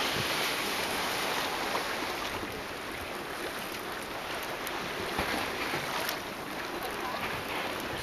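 Steady wash of small sea waves, with some wind on the microphone.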